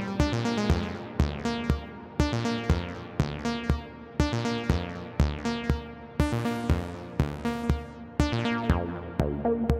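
Modular synthesizer playing a sequenced electronic tune: short plucked-sounding synth notes whose brightness falls away quickly after each attack, over a steady drum-machine-like beat of about two hits a second.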